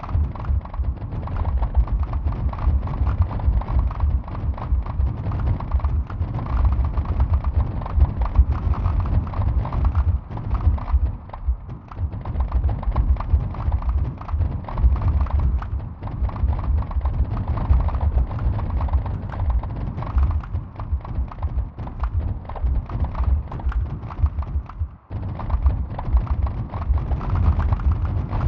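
Sonified earthquake swarm: a dense, unbroken stream of overlapping low thuds and knocks, each a sped-up seismic waveform sample set off by one recorded tremor, its pitch marking the quake's depth and its length and loudness its magnitude. The stream briefly drops away about 25 seconds in.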